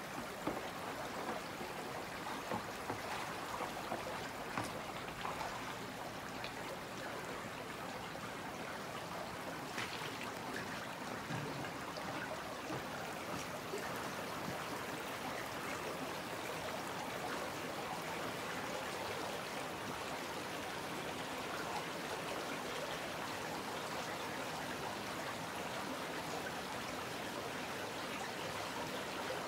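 Shallow brook babbling over gravel and cobbles: a steady rush of running water, with a few small splashes and trickles in the first several seconds.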